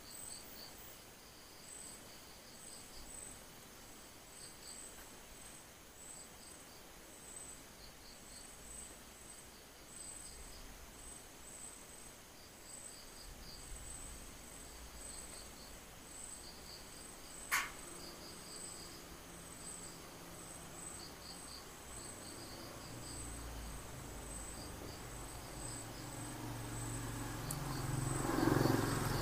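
Faint insect chirping: a high, pulsing trill with shorter irregular chirps beneath it. There is a single sharp click a little past halfway, and a low rumble grows louder near the end.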